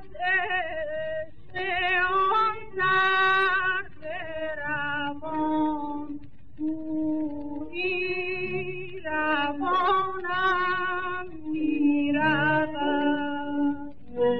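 A woman singing a Persian classical tasnif in the Shushtari mode, in short phrases with wavering, ornamented pitch. It is an early-1930s 78 rpm record, thin and narrow in sound.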